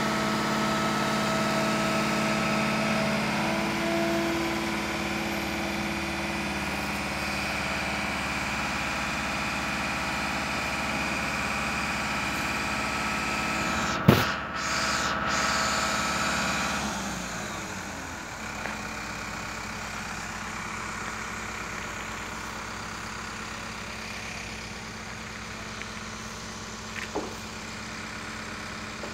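Heavy diesel engine of a truck-mounted mobile crane running steadily, with a single sharp knock about halfway through; after about seventeen seconds the engine sound drops lower and quieter but keeps running.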